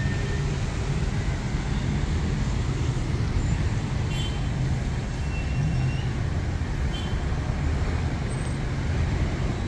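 Steady city street traffic: cars and a bus running along a wet street, a continuous low rumble.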